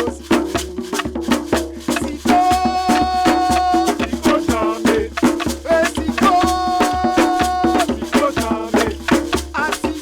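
Music with fast, dense percussion, including shakers and wood-block-like clicks, and a held melodic note that comes back about every four seconds.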